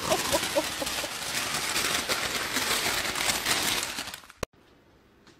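Plastic bag crinkling and rustling continuously as a mini pig roots in it, with a few short high squeaks right at the start. It cuts off with a click about four seconds in, followed by near silence.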